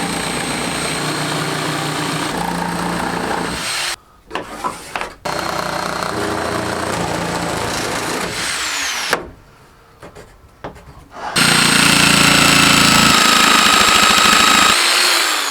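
Electric power saw cutting a floorboard template in three long runs with short pauses between them; the motor whine falls away each time the trigger is let go, and the last run is the loudest.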